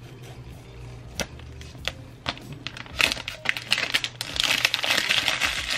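Clear plastic wrap being peeled and pulled off an iPhone 11 box. A few scattered crackles come first, then dense crinkling starts about three seconds in and grows louder near the end.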